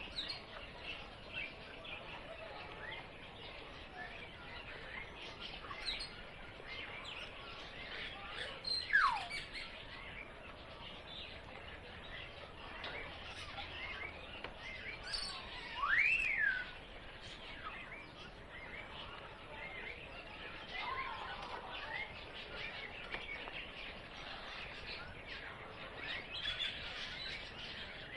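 Many small birds chirping and twittering together in a steady outdoor chorus. A louder downward-sliding whistle comes about nine seconds in, and a louder whistle that rises and then falls comes about sixteen seconds in.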